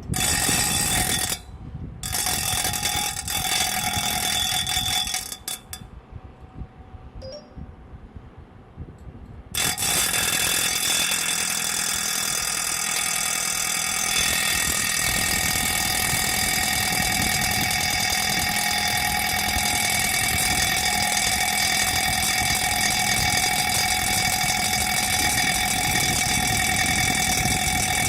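Rubine Pro Eco appliance running with a loud, steady mechanical whine of several high tones over a low hum. It cuts in and out in short spells at first, then runs without a break from about ten seconds in. The noise is what the owner is complaining of.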